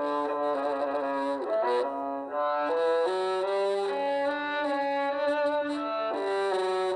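Nokia 3110c mobile phone ringtone playing: an instrumental melody of short pitched notes in several parts, with a brief break about two seconds in.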